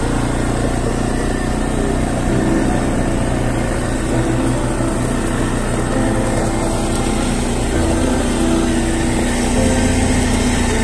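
Quad bike engine running steadily under way, heard from the rider's position.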